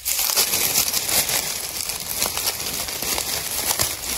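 Dense, continuous crackling and rustling of dry leaves, full of small snaps, starting abruptly.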